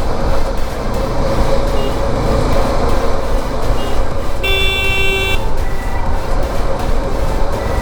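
Steady wind and traffic noise on the road, with a vehicle horn honking once for just under a second about halfway through.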